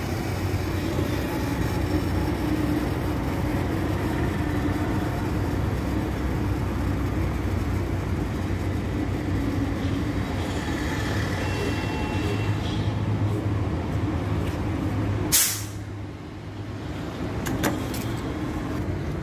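Steady low rumble of CNG filling machinery while the car's tank is filled. About 15 seconds in, a short, sharp hiss of compressed gas as the filling nozzle is released, after which the rumble falls away. A few light clicks follow as the fuel flap is shut.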